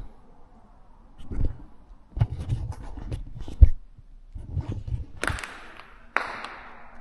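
Irregular footsteps thudding and crunching over debris on a rubble-strewn floor, with one sharper knock in the middle. Near the end come two short scraping, hissing noises, the second starting abruptly and fading away.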